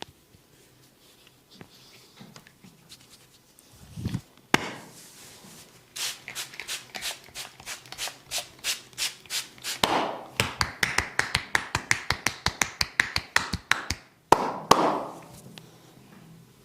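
Massage hands on a person's body: quiet rubbing, then sharp slaps about two a second that quicken about ten seconds in to a rapid run of about eight a second, and one last loud smack near the end.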